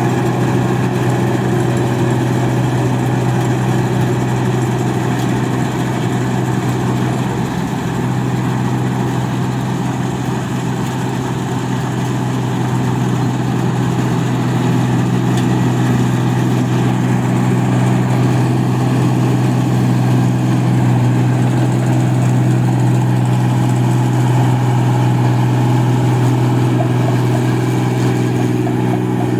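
Engine of a rice harvesting machine running steadily with a low, even hum, easing slightly about a third of the way through and then picking back up.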